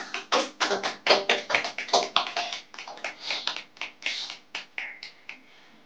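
A small group of people clapping by hand: quick, uneven claps that thin out and stop just before the end.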